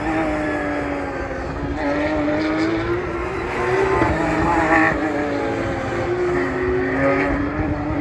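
Porsche Carrera Cup race cars' flat-six engines running hard as the cars pass one after another, the engine note falling and rising with a few sudden shifts in pitch.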